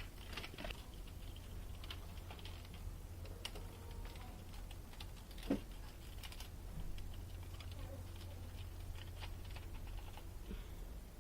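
Scattered light clicks and taps over a steady low hum, with one louder knock about five and a half seconds in.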